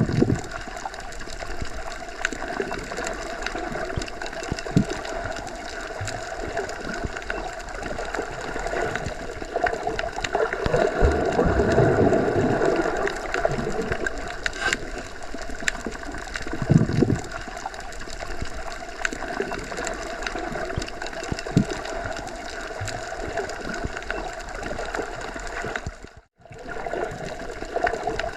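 Underwater ambience, as heard submerged in a pool or lake: a continuous muffled watery rumble with gurgling swells and scattered small clicks. It cuts out for a moment near the end, then resumes.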